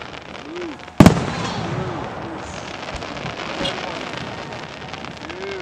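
A firework shell bursting with a single sharp boom about a second in that echoes as it fades, followed by a couple of much fainter pops.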